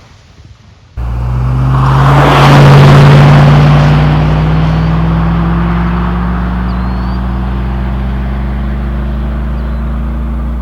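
Chevy 5.3L V8 exhaust through Cherry Bomb Salute mufflers. It cuts in suddenly about a second in, swells to its loudest a couple of seconds later, then settles into a steady pull with its pitch slowly rising.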